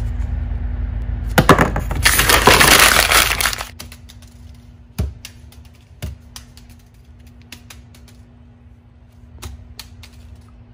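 A sheet of writing paper being crumpled into a ball: loud crackling that lasts about two seconds, then a few scattered light taps and knocks as the ball is handled and dropped into a plastic-bag-lined wastebasket.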